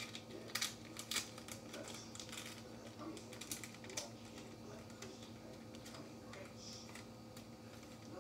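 Light clicks and taps of small objects being handled, several sharp ones in the first four seconds and fainter ones after, over a steady low electrical hum.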